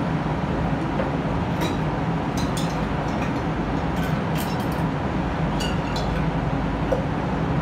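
Steady drone of a spray booth's ventilation fans, with a few short light clinks scattered through the middle.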